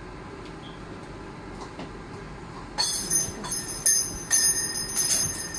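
Parrots screeching: after a stretch of low room noise, a series of loud, shrill squawks starting about three seconds in, each holding the same piercing high pitches.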